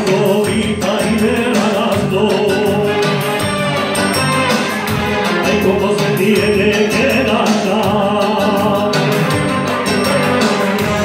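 A man singing a Spanish rumba live into a handheld microphone, amplified through PA speakers over backing music.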